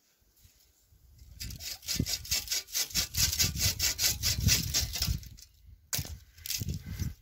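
Hand saw cutting through wood in quick, even back-and-forth strokes for about four seconds, then a short pause and a few more strokes near the end.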